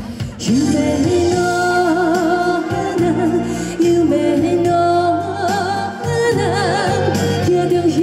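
A woman singing long held notes with wide vibrato over band accompaniment.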